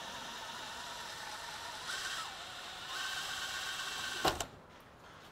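Cordless drill drilling out a spinning pop rivet through painter's tape. The motor note steps up in pitch partway through. A sharp knock comes about four seconds in, and then the drilling stops.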